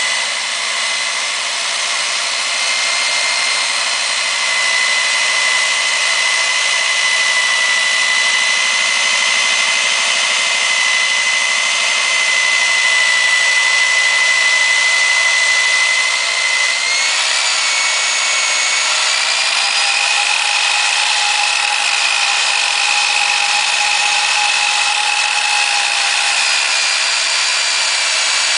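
KOR-IT K-806 1500-watt electric core drill, stand-mounted, running under load as its core bit is fed down into wet concrete. The motor gives a steady high whine that steps up slightly in pitch a little past halfway.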